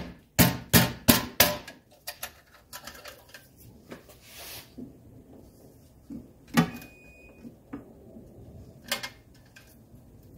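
Air filter element and lid being fitted by hand into a Mercedes 300CD air cleaner housing: four sharp knocks in quick succession in the first second and a half as the parts are pressed into place, then scattered lighter clicks and taps as the lid is seated and fastened.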